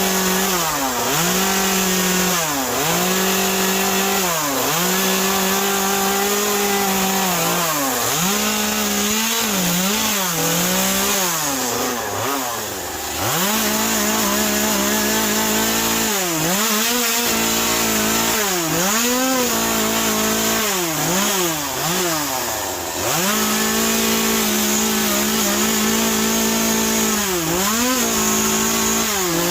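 Carving chainsaw running at high revs and cutting into wet western red cedar. Its pitch drops and climbs back many times as the throttle is eased and reopened between short cuts.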